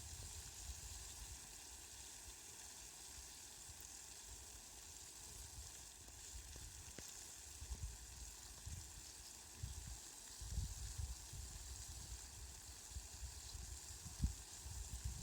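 Steady, fairly faint hiss of rain falling, with low rumbling bumps underneath that come more often in the last few seconds.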